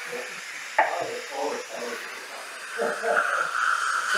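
A steady air hiss from a dental instrument held at the tooth, starting about three seconds in, over low background voices; a sharp click a little under a second in.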